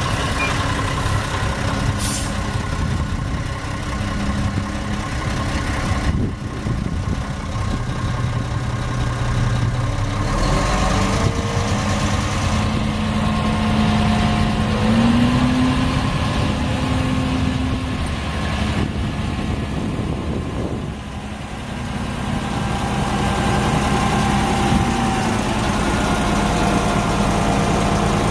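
Mack E7 12-litre inline-six diesel of a 1998 Mack RD688SX dump truck running steadily while the hydraulic hoist raises the steel dump bed. The engine speed rises about halfway through.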